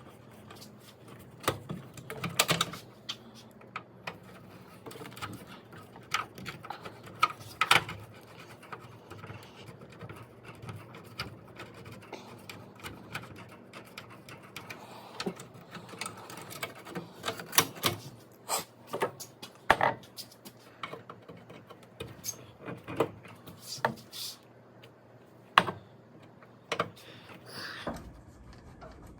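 Irregular clicks, taps and scrapes of hand tools working a seized part on a Dodge M37's metal windshield frame back and forth to free it.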